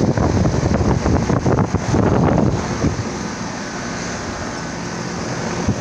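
Gusty wind buffeting the microphone for about the first three seconds, over the steady hum of a running outdoor air-conditioner condenser unit.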